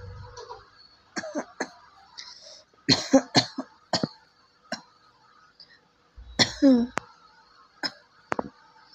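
A person coughing repeatedly in short bouts of one to three sharp coughs. It is a dry cough with no phlegm and no cold behind it, which the cougher puts down to gas.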